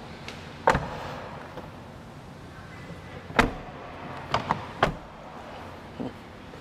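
Jeep Wrangler door being shut: a sharp thud under a second in, another loud thud near the middle, then a few lighter knocks.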